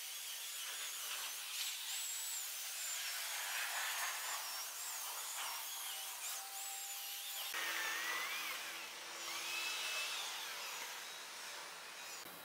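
Corded Makita electric chainsaw cutting through a thick wooden slab: a high, wavering whine over the hiss of the chain in the wood, fading near the end.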